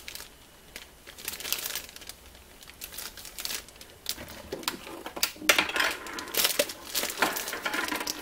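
Clear plastic bag crinkling as the new multimeter sealed inside it is handled and turned over, in irregular rustles that get busier in the second half.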